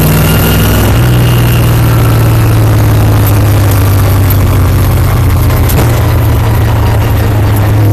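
Stock race car's V8 engine running steadily under power as the car laps the track, heard loud from inside the cockpit, its pitch stepping slightly about a second in.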